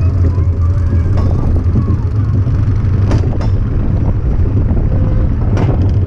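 Small roller coaster car rolling along its track: a steady low rumble of wheels running on the rails, with a few sharp clacks at about three seconds and again at about five and a half seconds.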